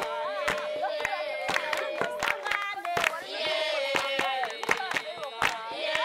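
A group of women and children singing together in chorus, with a steady rhythm of hand claps throughout, accompanying dancers.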